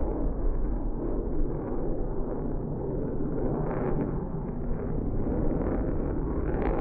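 Twin jet engines of a Blue Angels F/A-18 Hornet passing low over the airfield: a loud, steady, deep rumbling roar.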